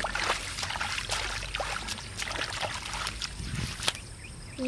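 Hands and bare feet sloshing and squelching through shallow muddy water, with irregular splashes as the mud is groped through by hand for fish. The splashing eases about four seconds in.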